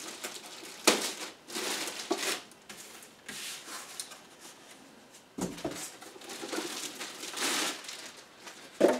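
Plastic wrapping crinkling and rustling in irregular bursts as it is pulled off a boxed device, with cardboard packaging handled alongside. There is a soft knock about five seconds in and another near the end.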